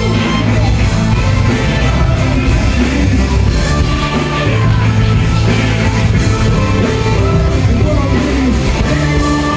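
Live rock-rap concert music played loud through a venue PA, with a driving bass line, guitar and a singing voice.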